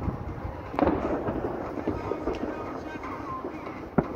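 Distant bangs echoing over a city: a sharp crack about a second in, trailing into a rumbling echo, and another sharp crack near the end.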